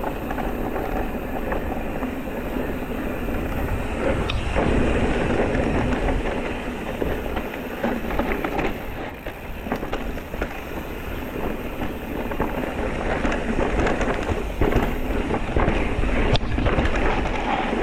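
Mountain bike being ridden over a rough, rocky trail: continuous tyre noise with frequent knocks and rattles from the bike, and wind on the microphone.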